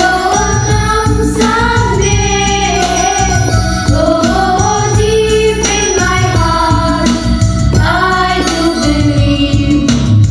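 A group of young students singing a Christian prayer song together, with electronic keyboard accompaniment.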